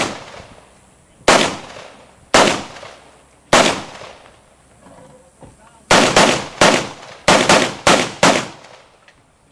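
Rifle shots: three single shots about a second apart, then a quicker string of about eight shots fired in rapid succession.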